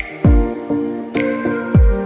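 Background music with a steady beat: a deep kick drum that drops in pitch on each hit, over held chords, with a sharp snare-like hit about a second in.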